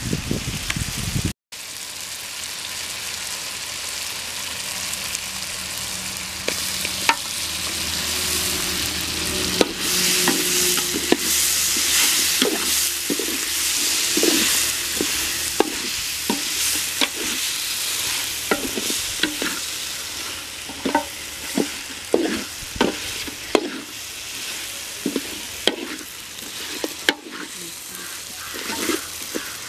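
Dried fish frying with onions and tomatoes in a metal pot over a wood fire, sizzling steadily, with a steel ladle scraping and clicking against the pot as the mixture is stirred. The sizzle is loudest about ten to fifteen seconds in.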